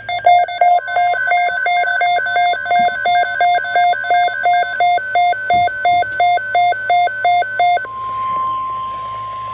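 Electronic alarm beeping in a fast, even two-note pattern, about two to three beeps a second, then, about eight seconds in, a steady single tone near 1 kHz: the weather radio alert tone that comes before a warning message.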